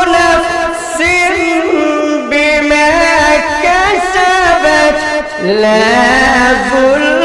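A man's voice chanting Quranic recitation in a melodic, melismatic style, long held notes bending and ornamented up and down.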